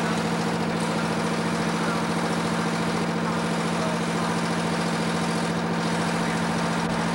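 Fire engine's engine running steadily with an even hum, driving the pump that feeds the hoses connected at its panel.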